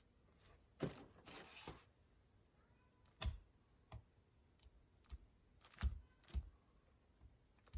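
Scattered light clicks and knocks with a brief scrape a little after one second: tools and hands working plastic repair filler onto a steering wheel as it starts to set.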